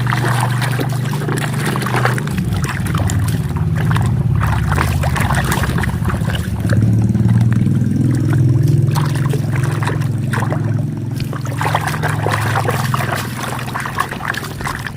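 Water trickling and pouring over a muddy toy vehicle as it is rinsed clean, with a steady low hum underneath.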